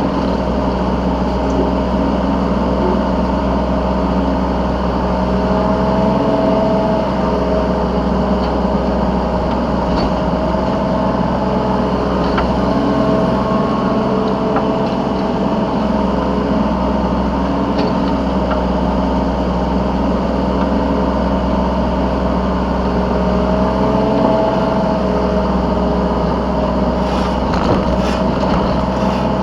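Yanmar B3 Sigma 3-ton mini excavator's diesel engine running steadily, heard from the operator's seat while it digs and loads. Its pitch lifts slightly a few times as the hydraulics take load, and a few light knocks come near the end.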